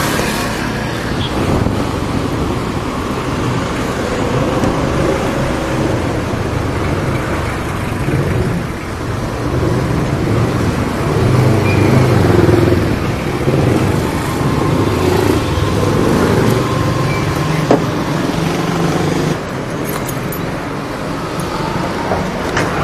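A road vehicle's engine running with traffic and road noise, its pitch rising and falling with speed, picked up by an action camera's built-in microphone. It eases a little near the end.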